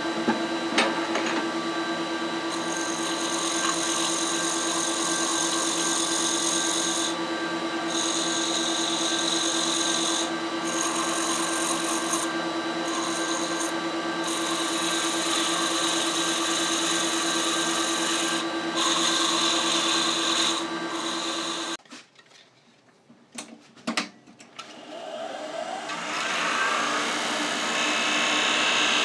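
Wood lathe running with a steady motor hum while abrasive is held against the spinning softwood piece, a hiss that comes and goes. About three-quarters of the way through, the sound drops almost to nothing for a couple of seconds, then the lathe hum and rubbing build back up.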